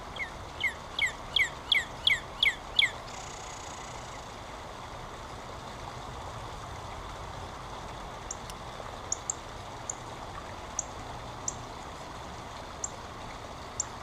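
Northern cardinal song played back from the Merlin Bird ID app on a phone: a quick run of about eight loud down-slurred whistles that stops about three seconds in. Later, short sharp high chip notes come one at a time every second or so over a steady background hum.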